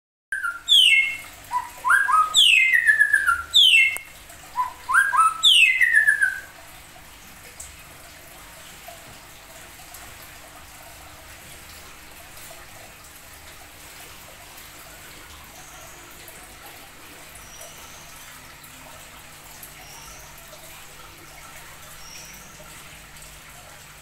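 A caged songbird singing loud, clear whistled phrases, many of them quickly falling notes, for the first six seconds or so; after that only a few faint, high chirps.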